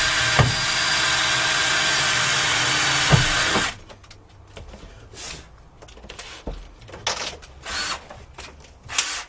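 Power drill running steadily for about four seconds and then stopping, fixing a plywood floor lining down to a van's steel floor with stainless steel screws. A few light knocks and clicks follow.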